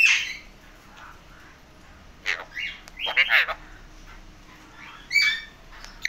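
Male Alexandrine parakeets calling in short bursts: one loud call right at the start, a cluster of calls about two to three and a half seconds in, and another about five seconds in.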